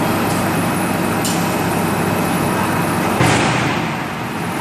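Hydraulic plate shearing machine running with a steady loud drone, a faint click about a second in, and a sudden loud sound about three seconds in that fades over about a second.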